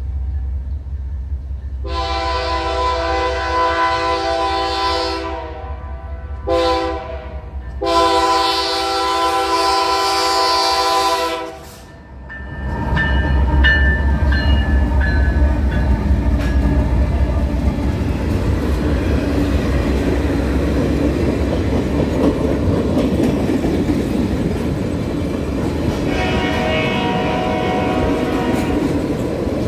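Nathan K3L five-chime air horn on a CN diesel locomotive blowing for a grade crossing: a long blast, a short one, then another long one. The locomotives then pass close by with engine rumble, followed by railcars rolling over the rail joints with a clickety-clack.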